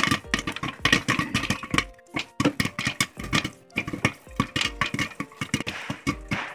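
Popcorn kernels popping in hot oil in a covered pot: a dense, irregular run of sharp pops, several a second. The popping is still going, so the popcorn is not yet done.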